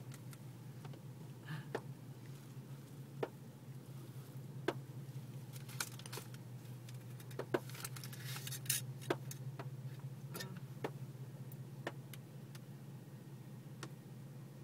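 Quiet, steady low hum inside a car cabin, with scattered light clicks and taps at irregular intervals.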